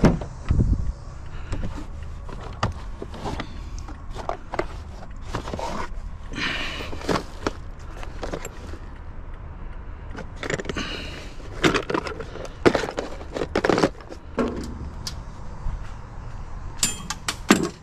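Lawnmower and metal scrap being wrestled around in a truck bed: a string of irregular clanks and knocks, with two longer scraping noises, one about a third of the way in and one just past halfway.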